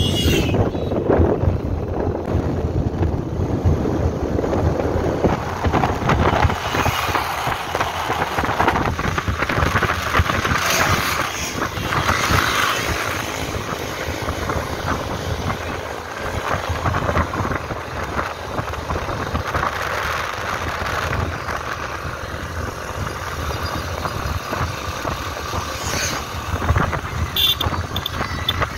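Riding on a motorcycle: its engine running steadily under road and wind noise on the microphone.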